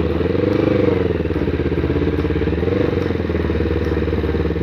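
Yamaha sport motorcycle engine running at low revs as the bike rolls slowly, rising a little in pitch about half a second in and again near three seconds.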